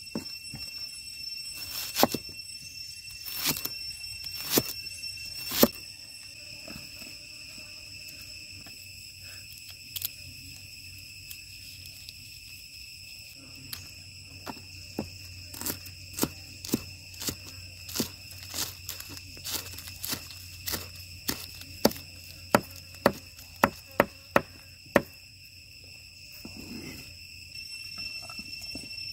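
Knife chopping onion and other vegetables on a wooden board: sharp knocks, a few spaced strokes early on, then a run of chops that quickens to about two a second near the end. A steady high-pitched whine sits in the background.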